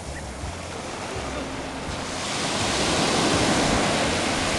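Sea surf washing up the beach. A wave swells louder about halfway through, then eases off near the end.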